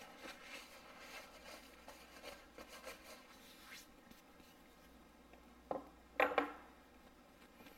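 A metal block of bar stock is handled and set into a milling machine vise. Faint rubbing and scraping comes first, then a light knock and two sharper metal clunks a little past halfway as the block goes down between the vise jaws.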